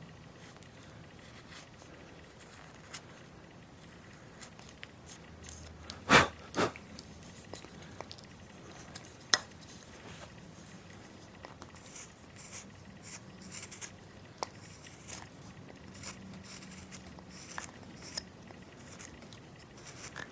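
Carving knife cutting and chipping into wood in short, scattered strokes with faint scraping, and two sharp knocks about six seconds in.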